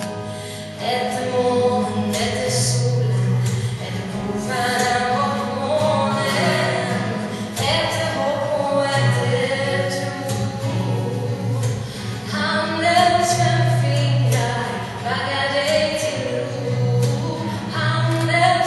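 Music: a group of voices singing a song, over low held notes underneath.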